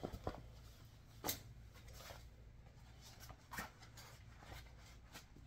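Faint rustling and a few soft clicks as a tanned raccoon pelt is handled: fur brushed by hand and the hide turned over. The clearest handling noises come about a second in and again near the middle.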